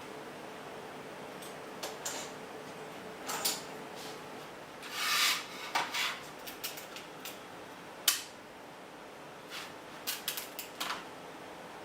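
Small hard objects being handled: scattered clicks and taps, a short rubbing scrape about five seconds in, and one sharp click about eight seconds in.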